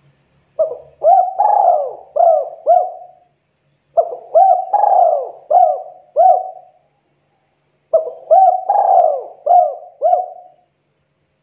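Spotted dove cooing: three phrases of about five rounded coos each, a second or so apart.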